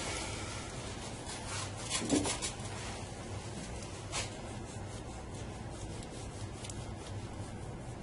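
Soft cloth wiping and rubbing across a smartphone display panel's glass, cleaning it, in irregular strokes with a louder pass about two seconds in.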